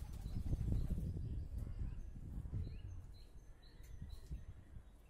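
Small birds chirping in short, high chirps several times, over a low rumble that fades toward the end.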